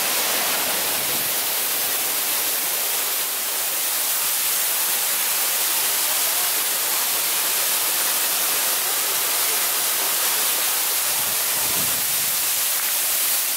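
Waterfall pouring down a rock face: a steady, loud, even rush of falling water.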